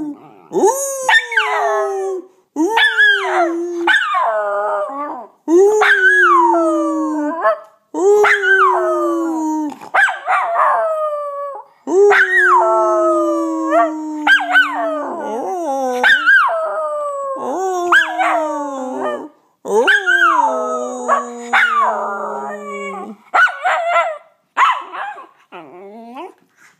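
Miniature schnauzer howling over and over: about a dozen drawn-out howls with short breaks between, each rising sharply at the start and then sliding down in pitch. The last few, near the end, are shorter.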